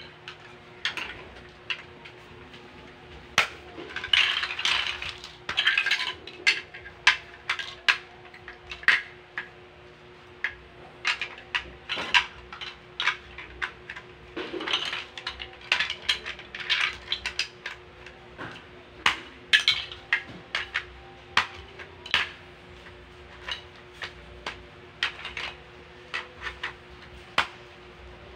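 Large plastic Lego bricks clicking and clattering, handled in a loose pile and pressed together, in irregular clacks with stretches of rummaging clatter about four and fourteen seconds in.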